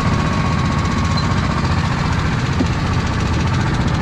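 Go-kart engines idling on the grid, a steady rapid beat.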